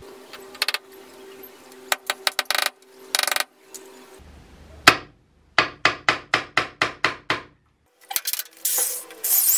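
Tools being handled while a drill is readied: scattered sharp clicks and rattles, then a run of about nine evenly spaced clicks, and a brief burst of noise near the end.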